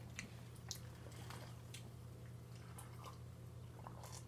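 Faint chewing and wet mouth sounds of someone eating, with a few small clicks scattered through, over a steady low hum.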